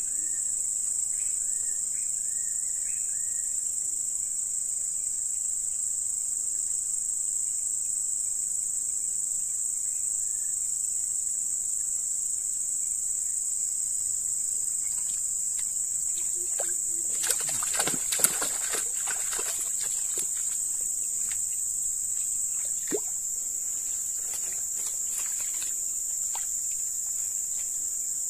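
Steady high-pitched drone of insects. For a few seconds past the middle it is joined by crackling rustles and clicks in dry stems, then one more sharp click.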